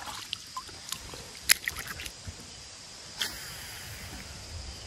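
Scattered small clicks and taps, the sharpest about a second and a half in, over a faint steady high-pitched tone and light background noise.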